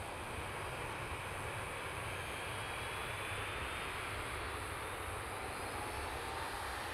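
Boeing 737-900's CFM56 jet engines running at low power as the airliner taxis and turns onto the runway: a steady hiss with a faint whine rising slowly in pitch.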